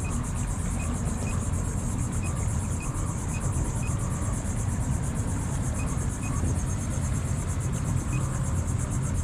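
Electric trolling motor driving a kayak, with a steady high-pitched whine over a low rumble.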